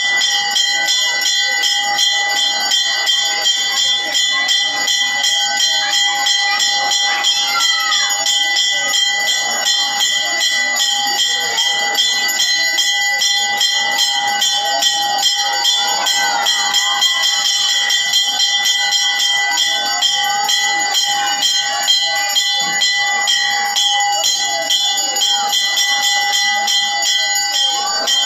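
Temple bells ringing fast and without pause for the aarti: a quick, even run of strokes over a steady ring.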